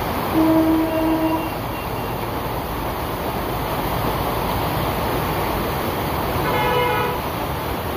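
Heavy rain and traffic on a flooded road, a steady hiss of rain and tyres through water. A vehicle horn sounds for about a second near the start, and a second, higher-pitched horn honks briefly near the end.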